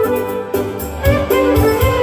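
Romanian party band playing an instrumental dance tune live: a held lead melody over a steady drum beat.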